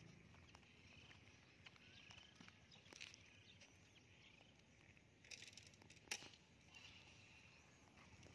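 Near silence outdoors: faint footsteps on concrete, with a few brief clicks, the sharpest about six seconds in.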